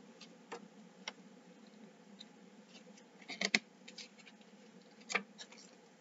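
Faint rustles and small clicks of a CD booklet's paper pages being handled and turned, the loudest cluster about three and a half seconds in.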